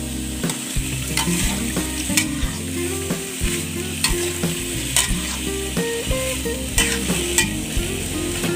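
Sliced bitter melon sizzling in hot oil in an aluminium wok over a high flame, stirred with a metal spatula that scrapes and clicks against the pan roughly once a second.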